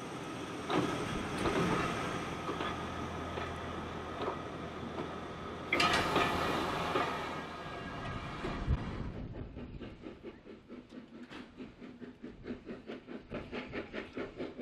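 A train on a heritage railway running: clanks and rumble, a loud rush of noise about six seconds in, then a quieter, regular beat of about three pulses a second.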